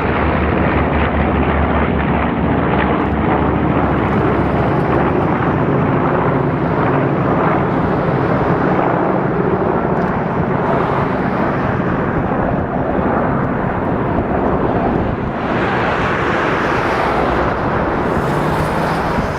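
B-25 Mitchell bomber's twin radial piston engines running steadily as it flies by. The sound brightens and sharpens about fifteen seconds in.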